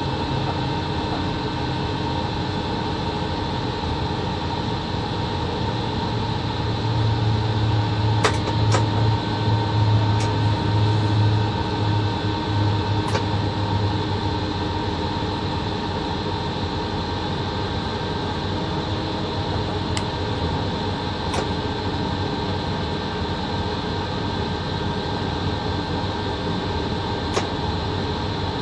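Steady machinery hum inside the cab of a VL80 electric locomotive, with a low rumble that swells for several seconds about a quarter of the way in. Several sharp clicks fall at irregular moments.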